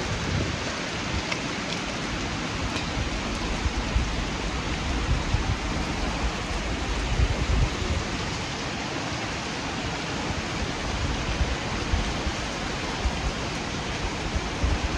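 Heavy rain pouring down steadily as a dense, even hiss, with uneven low rumbling surges underneath.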